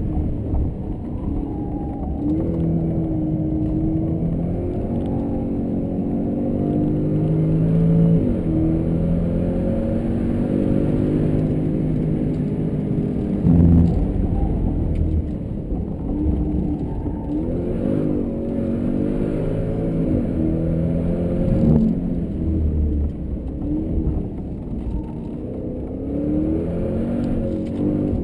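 Jaguar XFR-S's supercharged 5.0-litre V8 revving hard under acceleration, its pitch climbing through each gear and dropping at the shifts, over and over. There are a couple of brief loud thumps, about halfway through and again later.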